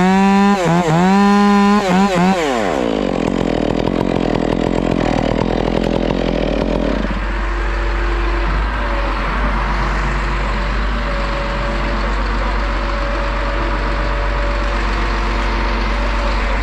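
Stihl chainsaw revving high in repeated throttle blips, then dropping back about three seconds in and idling steadily.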